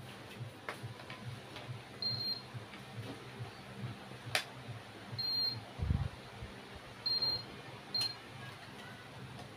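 Room background noise dominated by an electric stand fan's low, steady hum. Four short high beeps, two sharp clicks and a dull thump about six seconds in sound over it.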